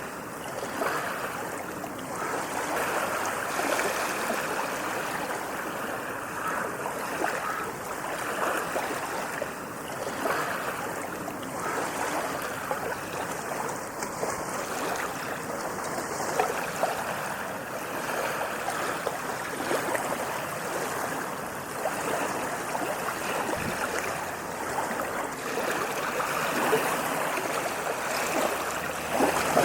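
Ocean waves washing on a sandy beach: a continuous rushing wash that swells and eases every couple of seconds.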